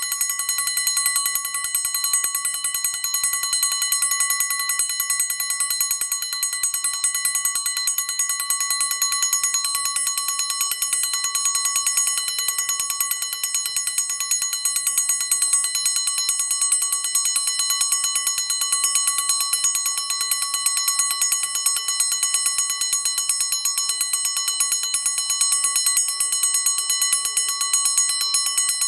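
Westclox Big Ben alarm clock's alarm ringing: its hammer beats rapidly and evenly on the bell, a continuous metallic ringing that keeps up without a break.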